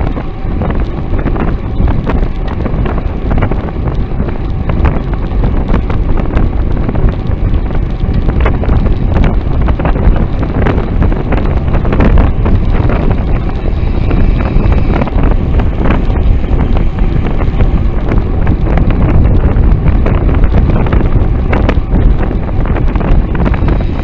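Heavy wind buffeting the microphone of a bicycle-mounted camera riding at speed, with road rumble and frequent small clicks and rattles.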